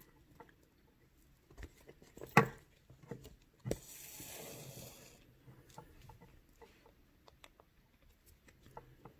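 Faint handling sounds of hand beadwork: a few small clicks and taps, the sharpest about two and a half seconds in, then a soft swish of about a second and a half as the beading thread is drawn through the felt backing.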